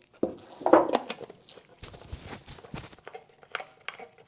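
Handling noise from mixing paint at a workbench: a plastic mixing cup, cans and bottles being picked up and set down, giving a run of clicks and knocks, the loudest a little under a second in.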